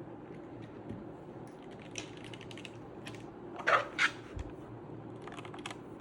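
Keys of a Redragon K530 Pro mechanical keyboard with new keycaps being pressed in irregular clacks, with two louder clacks a little past halfway.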